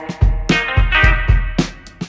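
Background music with a steady drum beat and pitched instrument notes.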